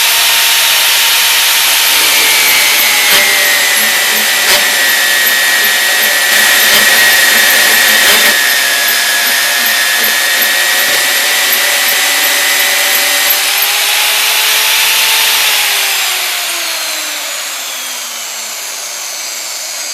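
Electromagnetic drill running under load as it cuts a hole through the metal of a tank, a steady grinding with a whine; about fifteen seconds in the motor spins down, its pitch falling as it slows.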